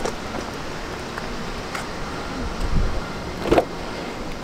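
Steady outdoor background hiss and low rumble with some rustle, and a soft thump about three and a half seconds in.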